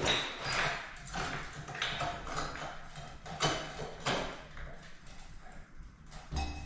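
Irregular taps and clicks of a metal wall sconce being handled and fitted against the wall.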